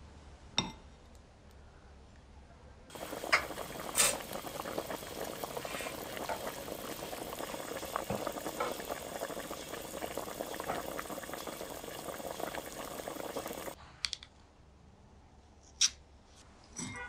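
A pot of liquid boiling hard, bubbling and spattering. It starts suddenly about three seconds in and cuts off suddenly near the end.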